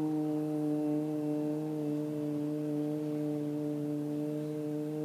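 A voice holding the long "oo" vowel of the syllable "Ju" at one steady pitch: the maximum lengthening of a lengthened dhamma sound under a double madda sign in Quranic recitation.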